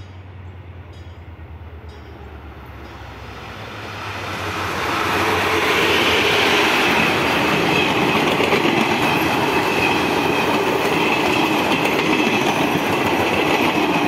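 Diesel-hauled passenger train passing: a low engine drone as the locomotive approaches, then from about four seconds in a loud, steady rush of wheel and rail noise as the passenger coaches roll past close by.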